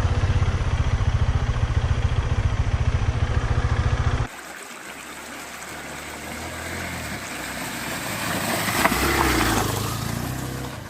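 Motorcycle engine running with a loud, even beat. After a sudden cut about four seconds in, a quieter motorcycle engine grows louder to a peak and then fades.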